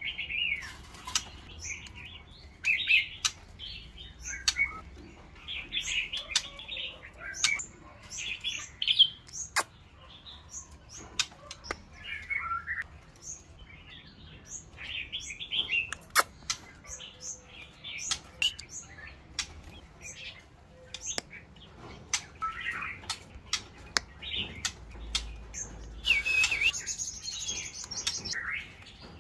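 White-rumped shama calling in bursts of short chirps and brief song phrases, with many sharp clicks in between.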